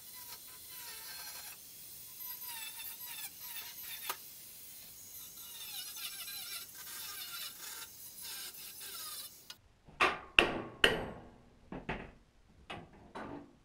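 Angle grinder with a cutting disc cutting through a steel support in a car's floor, its whine wavering and dipping in pitch as the disc bites. It stops about nine and a half seconds in, and about seven sharp knocks follow.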